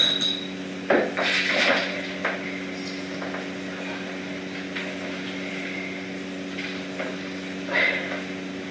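A knock and rustling as someone climbs into a clear plastic playpen, with a smaller bump near the end, over a steady low hum.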